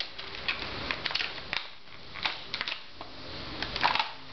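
A Mul-T-Lock Garrison lock cylinder being taken out of its plastic blister pack: a scatter of sharp plastic clicks and crackles, a busier cluster near the end.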